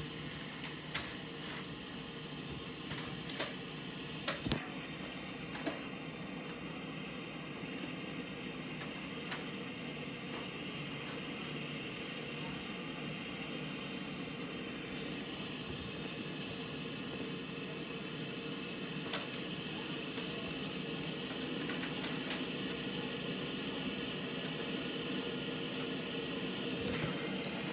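John Deere S790 combines harvesting wheat: a steady machinery hum with several held tones and scattered clicks, growing slightly louder toward the end.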